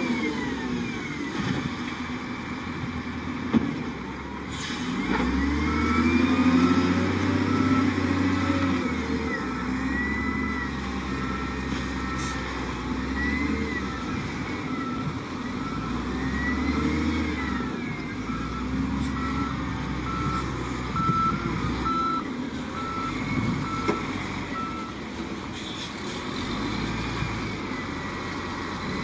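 SDLG L956H wheel loader's diesel engine running and revving up and down as it works. Its reversing alarm beeps about once a second, starting some six seconds in and stopping shortly before the end. There is a single sharp knock about three and a half seconds in.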